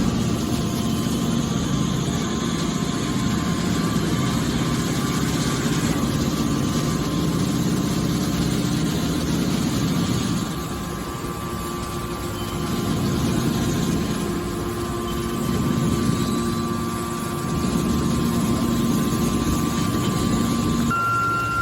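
Hydraulic automatic aluminum can baler running: a steady machine drone with a whine on top, dropping off about ten seconds in and building back up.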